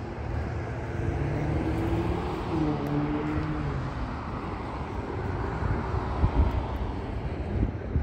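Engine noise of something passing by: a rumble with a steady hum that swells over the first few seconds, drops slightly in pitch about two and a half seconds in, and then slowly fades.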